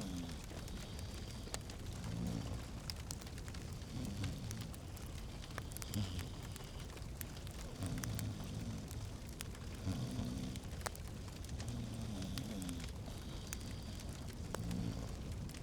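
Fireplace fire crackling: scattered sharp pops and snaps over a steady soft hiss, with a soft low sound recurring every second or two.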